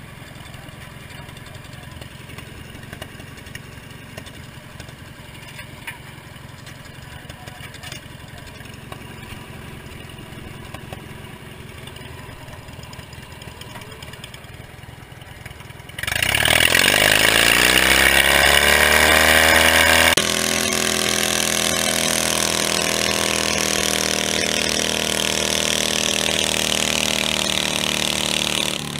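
Small garden-tractor engine idling steadily, then revved hard about two-thirds of the way in, climbing quickly to full throttle. It runs loud and high, changes abruptly a few seconds later to a slightly lower steady pitch, and holds there at high revs.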